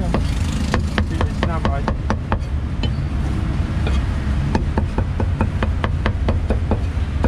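Cleaver chopping roast pork and offal on a thick wooden chopping block: quick runs of sharp knocks, about three to four a second, with a short pause about midway.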